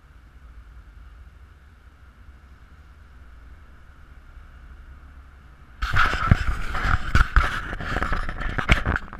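Handling noise from the camera being picked up and carried: loud rubbing, scraping and knocks on the microphone that start suddenly about six seconds in, after a few seconds of faint steady background noise.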